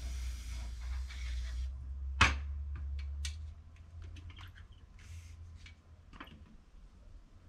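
Aerosol insecticide spray hissing in one steady burst at wasps, cutting off after about two seconds. A sharp knock follows, the loudest sound, then scattered lighter clicks and knocks from an aluminium stepladder being climbed down.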